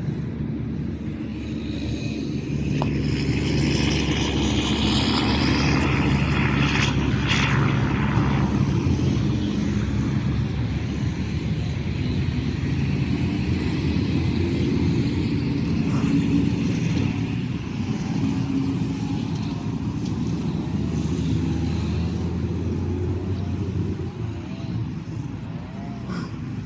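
Engine drone that builds over the first few seconds, is loudest a few seconds in, then carries on steadily.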